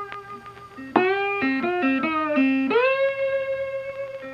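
Guitar music: a short phrase of held notes, several of them sliding up into pitch.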